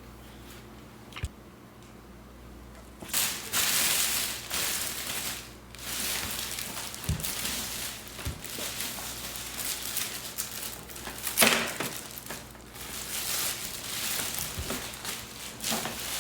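Plastic packaging rustling and crinkling as it is handled and pulled off the new machine, starting a few seconds in, with a sharper crackle or knock about two-thirds of the way through.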